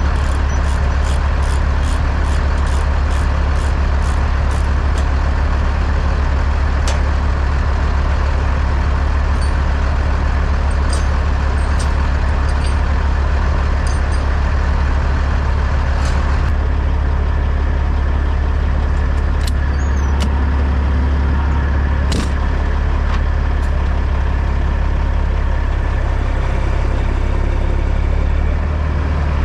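Semi truck engine running steadily under way, a constant low drone heard from inside the cab. Regular ticking, about two a second, runs through the first few seconds, with a few scattered clicks later.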